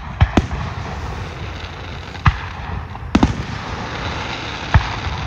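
Aerial firework shells bursting in a grand-finale display: about six sharp bangs at irregular intervals, two close together near the start and a quick cluster a little after three seconds in, with a steady rushing noise between them.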